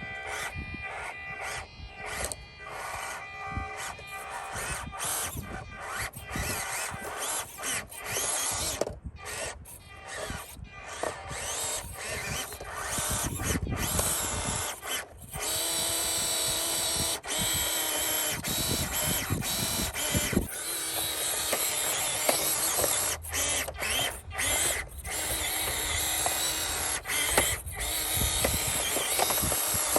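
Small electric motor and gears of a 1/24-scale RC crawler whining as it drives. For the first half it starts and stops in short spurts; from about halfway it runs more steadily.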